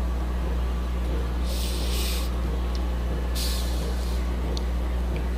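A steady low hum, with two short, hissy breaths drawn by a man close to the microphone, the first about a second and a half in and the second about two seconds later.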